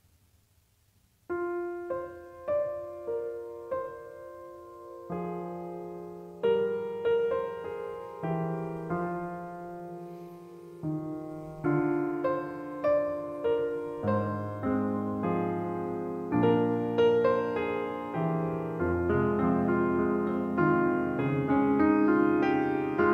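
Grand piano playing a hymn introduction, starting about a second in: a slow melody over chords, growing fuller and louder toward the end.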